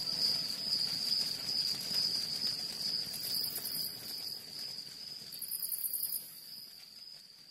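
Field insects trilling: a steady high-pitched trill, joined twice by bursts of faster, very high chirping, the whole sound gradually fading out.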